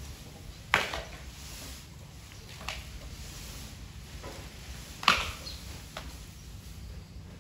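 Asian elephant chewing fodder: sharp crunching cracks of stalks breaking in its mouth, two loud ones about a second in and about five seconds in, with a few fainter crunches between.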